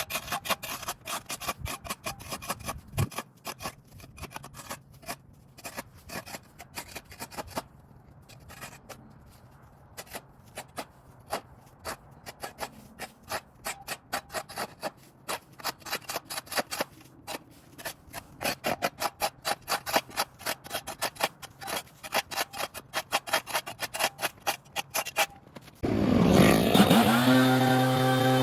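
Rapid, repeated scraping strokes of hand work on brush and debris, coming in quick runs that grow denser toward the end. About two and a half seconds before the end, a small gas engine starts loudly, climbs briefly in pitch and settles into a steady run.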